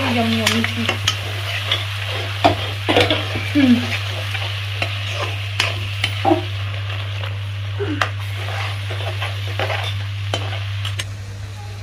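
Onion-tomato masala paste sizzling in hot oil in a metal kadhai while a metal spatula stirs it, with frequent short scrapes and clicks of the spatula against the pan. The masala is being fried down (bhuna) before water is added. A steady low hum runs underneath.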